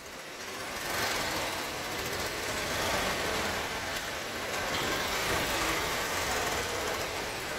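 Steady rushing machinery noise with no clear tone, growing louder about a second in.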